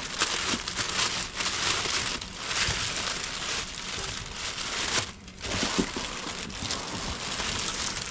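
Clear plastic wrapping crinkling and rustling continuously as hands grip and lift a heavy boxed inverter, with a brief lull about five seconds in.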